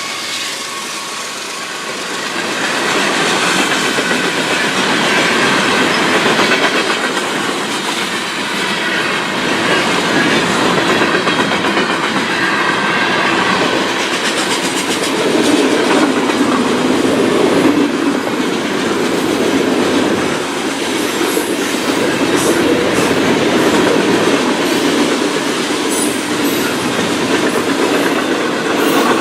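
Freight train cars rolling steadily past, with wheels clacking over the rail.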